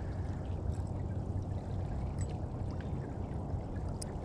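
Creek water rushing steadily, with a few faint small clicks.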